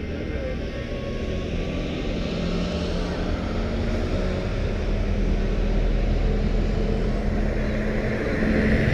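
Heavy diesel lorries driving slowly past in a procession. A mobile crane truck moves off while a Scania 143H with its V8 engine approaches, and the low engine rumble grows louder toward the end.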